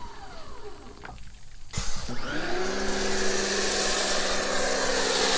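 Electric pressure washer motor winding down with a falling whine and stopping. About two seconds in it starts again with a rising whine that settles into a steady hum under the loud hiss of a foam cannon spraying.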